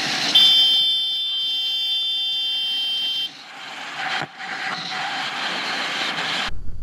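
A vehicle horn sounds one long steady blast of about three seconds, loudest as it starts. It gives way to a noisy rush of wind and traffic from a motorcycle riding in freeway traffic.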